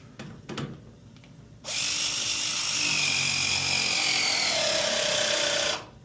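Milwaukee M12 battery press tool crimping a 3/4-inch copper press fitting: its motor starts about two seconds in, runs for about four seconds with a whine that slowly falls in pitch, then stops abruptly.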